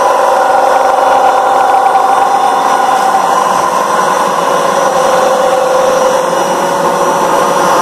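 Electric radial (side-channel) aeration blower running steadily: a continuous air rush with a steady multi-tone whine. This is the sound of a blower working normally and drawing air freely, unclogged.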